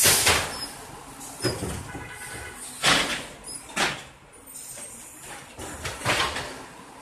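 City garbage truck working, with five short, sharp hisses of noise at irregular intervals over a low background rumble.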